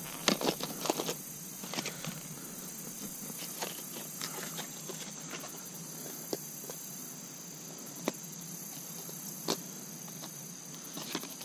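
Clear plastic blister pack holding a fishing lure being handled and worked open: scattered crinkles and clicks of stiff plastic, busiest in the first second or so, then sparse single clicks every second or two.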